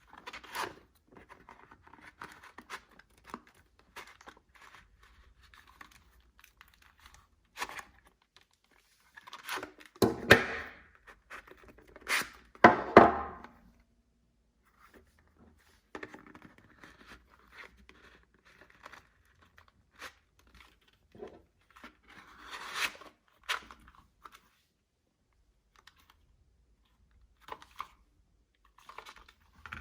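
Tools being forced into a tight, stiff new veg-tan leather belt carrier: leather rubbing and scraping with scattered knocks, loudest about ten to thirteen seconds in and again around twenty-three seconds. The fit is tight because the leather is not yet broken in.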